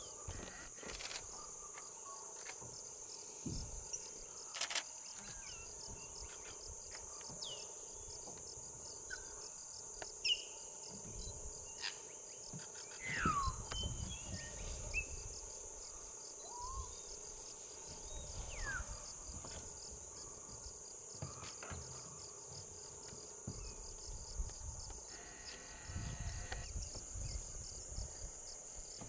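Steady high-pitched insect chorus, with scattered short bird calls; one is a clear falling whistle about 13 seconds in. Occasional low rustles and thumps.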